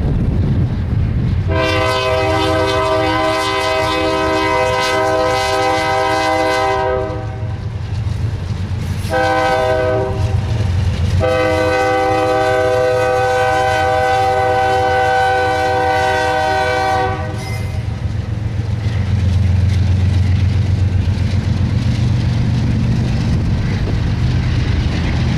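BNSF freight locomotive's chime air horn sounding a long blast, a short one, then another long blast, over the steady low rumble of the diesel locomotives and the train.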